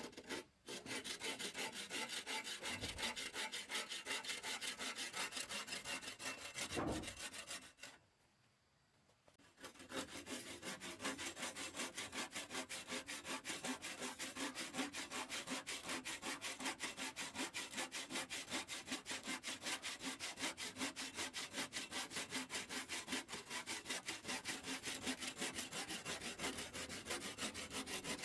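Hand saw cutting through wood in fast, even back-and-forth strokes, in two bouts with a short pause about eight seconds in.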